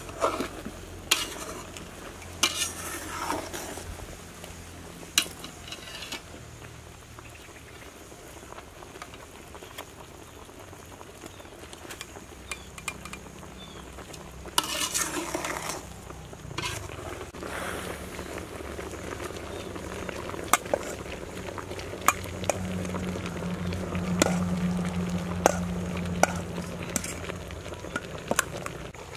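A metal ladle stirring halved bananas in a pot of simmering water, with scattered clinks and scrapes against the metal pot and bubbling from the boil, over a low steady hum.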